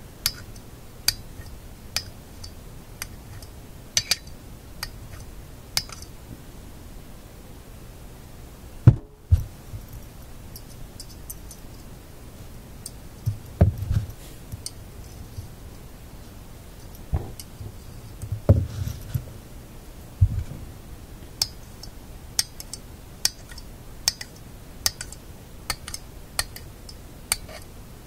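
A horseshoe magnet clicks and clinks against a small shadow-meter magnet held in locking pliers as it is stroked and snapped on and pulled off again, to re-magnetize it. There are many short sharp clicks at irregular intervals and a few duller knocks around the middle.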